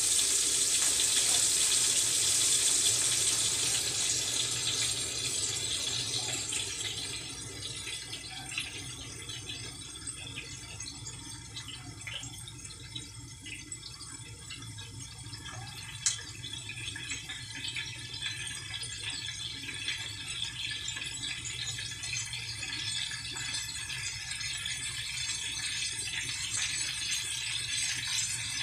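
Egg rolls frying in oil in a cast-iron skillet: a strong sizzle that dies down over the first several seconds to a softer, steady crackle with scattered small pops, and one sharper pop about halfway through.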